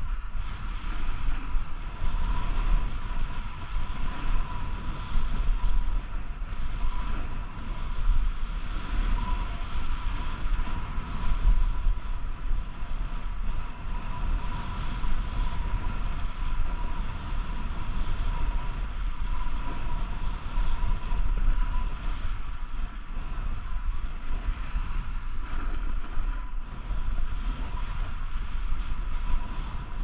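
Wind rushing over the microphone with the rasp of a snowboard sliding and carving over groomed snow: a steady, fluctuating rush with a deep rumble and a thin steady whistle above it.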